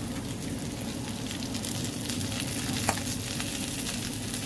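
Sardines frying in oil on a bed of curry leaves in a non-stick pan: a steady sizzle with scattered sharp crackles, one louder pop about three seconds in, over a low steady hum.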